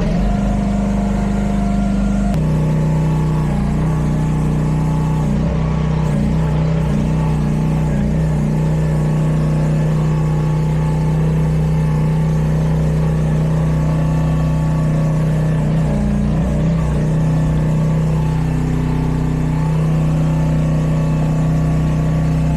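Mini excavator engine running steadily, its note dropping slightly about two seconds in and dipping briefly now and then.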